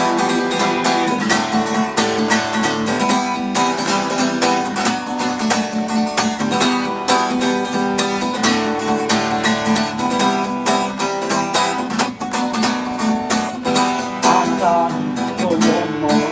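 Acoustic guitar strummed steadily through an instrumental break between sung verses.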